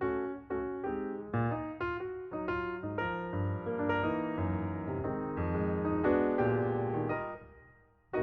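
Background piano music: a gentle run of notes and chords that dies away near the end.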